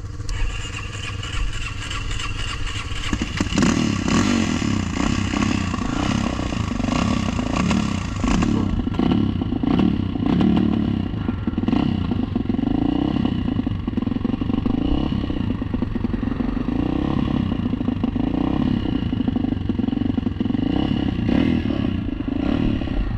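ATV engine running, just started again, then revving harder about three seconds in, its pitch rising and falling as the quad is ridden through snow. Rattling and knocking of the machine run underneath.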